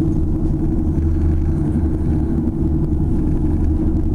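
Steady low rumble inside an aerial tramway cabin as it travels down the haul cable.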